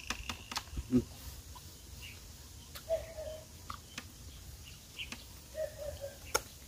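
Eating with bare hands: scattered small clicks and smacks of chewing and finger-licking, with a couple of short, faint chirps about three and six seconds in.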